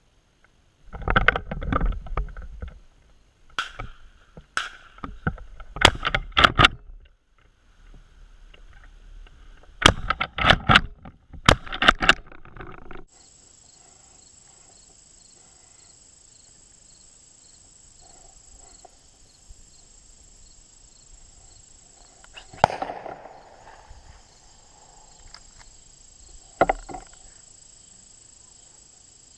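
Shotgun shots at doves: a string of sharp reports in the first dozen or so seconds, some in quick pairs. Then insects drone steadily, broken by two more shots, the louder one ringing out in an echo.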